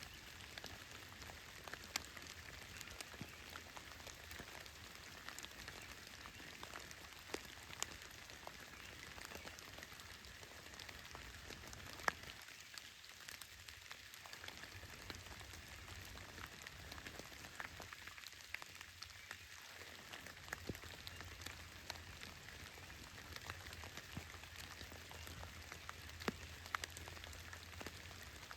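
Steady light rain falling, with scattered sharp ticks of single drops landing close by, one louder tick about halfway through.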